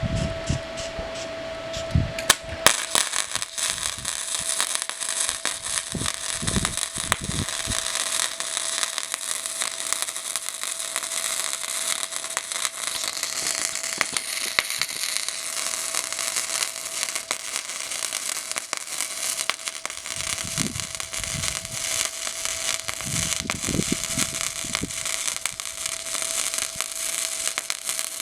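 Welding arc crackling and sizzling steadily as a bead is laid on steel, starting about two and a half seconds in. A steady fan hum runs underneath.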